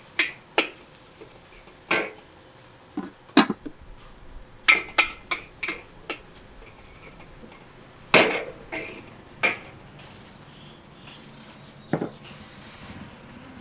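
Irregular sharp clanks and knocks of hard kitchenware being handled, about fifteen strikes, some in quick runs, with a brief ring after the louder ones. They thin out in the last few seconds.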